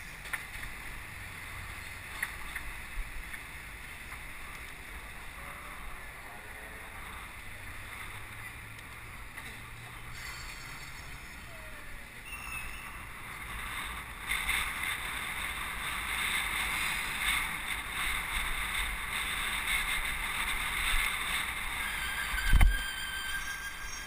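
Wind buffeting and road rumble on a bicycle-mounted camera riding through city traffic, a steady noisy rush that grows louder about halfway through. A single sharp thump comes near the end.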